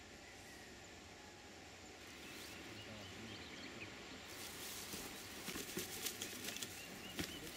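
Faint open-air background hiss with small high chirps, and from about halfway a run of light ticks and taps.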